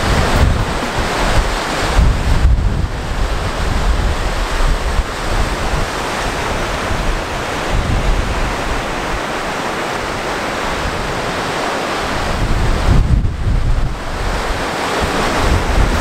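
Strong wind buffeting the microphone in gusts over the steady wash of ocean surf breaking on rocks.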